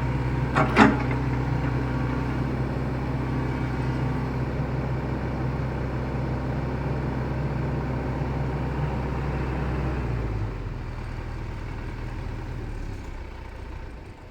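Excavator's diesel engine running steadily, with a short clank about a second in. About ten seconds in it drops to lower revs, and near the end the sound fades away.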